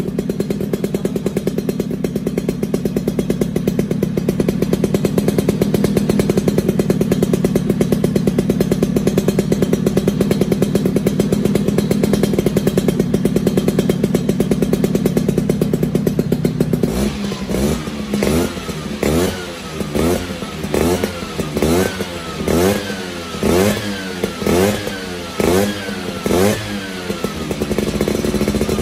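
Vespa Cosa 150 two-stroke engine with a Malossi 177 cc cast-iron cylinder kit, running through a stainless steel performance exhaust. It idles steadily for most of the time, then the throttle is blipped about ten times in quick succession, each rev rising and dropping back, before it settles to idle near the end.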